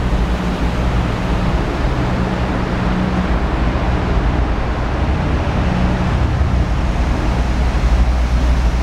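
Ferrari California's V8 engine idling steadily.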